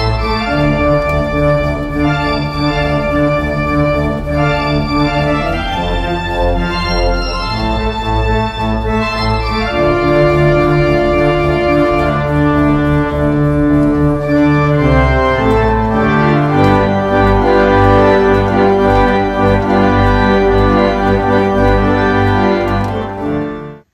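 Organ music: slow, sustained chords that change every few seconds, cutting off abruptly near the end.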